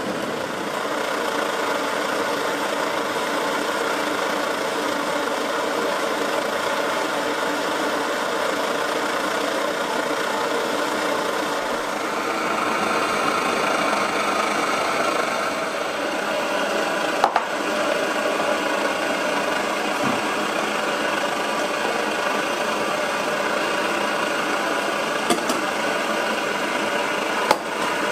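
1930s Primus 96 paraffin pressure stove burning under pump pressure: the burner's steady roar. A few short knocks come in the second half.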